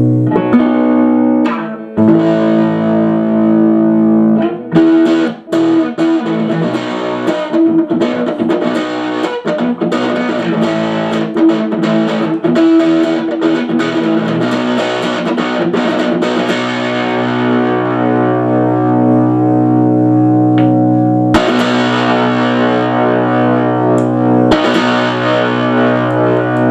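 Aria STG series electric guitar played through an amplifier on its single-coil middle pickup with the tone rolled down to muddy it: strummed chords left ringing, a busier run of picked notes in the middle, then two more strummed chords near the end.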